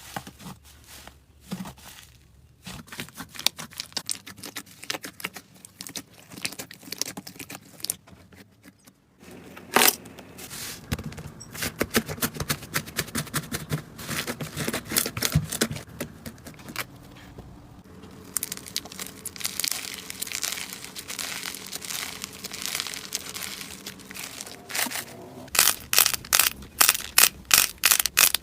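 Slime being squeezed and pressed by hand, crackling and popping densely. There is a sharp pop about ten seconds in, and near the end a run of louder quick pops.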